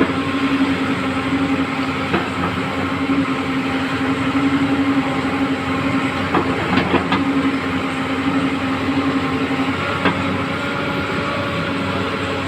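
Engine running steadily at one pitch, with a few short metallic knocks: one about two seconds in, a cluster around the middle and one near the end.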